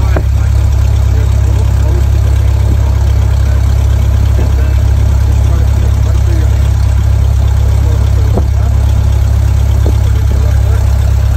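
Cessna 172SP's four-cylinder Lycoming engine and propeller giving a loud, steady low drone, heard inside the cabin.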